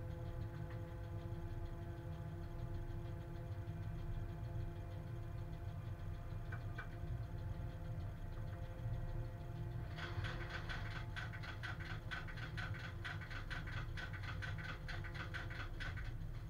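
Cab interior of a Czech class 130 electric locomotive running with a heavy freight train: a constant low rumble with steady humming tones that fade out about ten seconds in. After that comes a rapid, even run of sharp high clicks, about six a second, lasting some six seconds.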